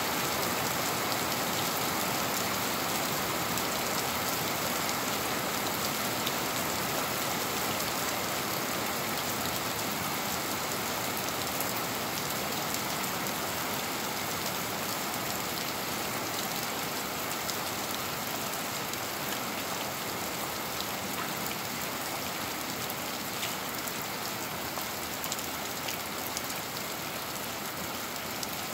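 Steady rain falling on a wet concrete street and garden plants: an even hiss with a few sharper drops close by, easing a little over the half-minute.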